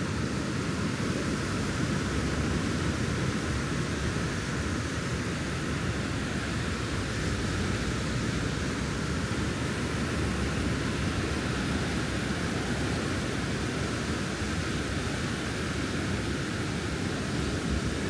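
Steady rushing noise of wind and sea surf, with a heavy low rumble and no breaks.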